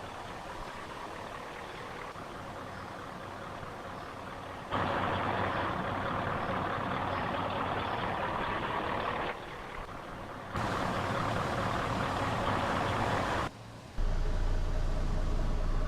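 Bus engine and road traffic noise, with no horn sounding, in segments that cut in and out abruptly. A steady hiss grows louder about five seconds in, and a low engine idle takes over near the end.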